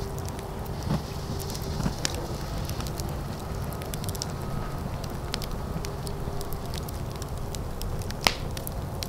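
Fire burning with scattered crackles over a steady low rumble, and one loud sharp pop near the end.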